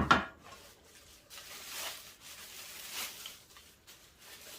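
A sharp clank right at the start as a metal meat-grinder part is set down, then faint rustling and scraping as parts are handled in the packaging.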